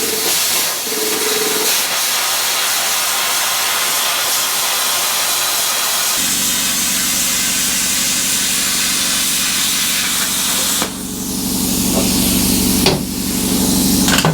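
Steel plate being cut with a plasma cutter: a loud, steady hiss of cutting air. About six seconds in, a low mechanical hum joins it.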